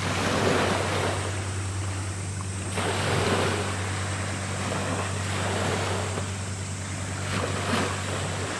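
Sea water washing and wind gusting in swells, over a steady low drone.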